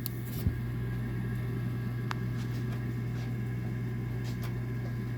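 Miller furnace running with a steady low hum, with a small click about half a second in.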